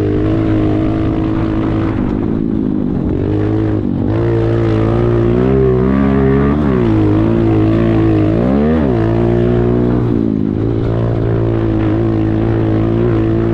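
Pit bike engine running at steady revs, the pitch dropping and climbing again a few times as the throttle is eased and reopened, most sharply about eight and a half seconds in.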